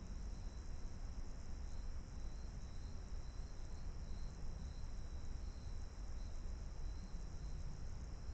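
A steady chorus of night insects trilling high, with a faint pulsing in the trill, over a low steady rumble of background noise.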